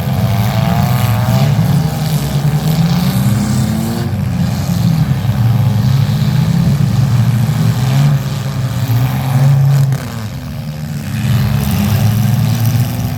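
Demolition derby car engines running loud and revving, their pitch rising and falling, with a short lull about ten seconds in.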